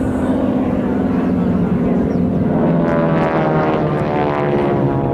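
Propeller aircraft of a formation team, North American AT-6D Texans with their radial engines and an Extra 300, droning overhead as they pull up into a vertical climb. A second, higher engine note joins the steady drone about two and a half seconds in.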